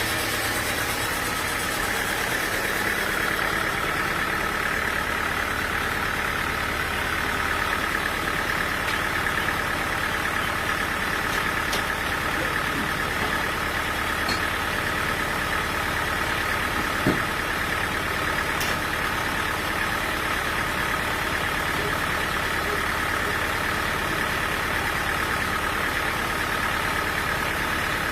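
Sawmill machinery running steadily, an engine-like drone with a steady whine, and one sharp knock about two thirds of the way through.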